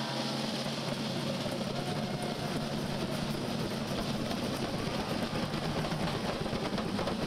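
A street drum band of snare and bass drums playing together in a fast, dense beat.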